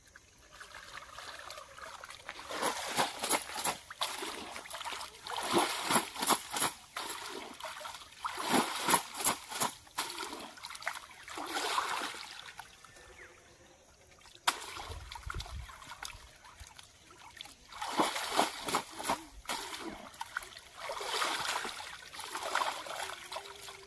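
Pond water splashing and trickling in repeated bouts as a wicker basket of cut fish is dipped and swished in the water to wash it. There is a quieter pause about halfway through.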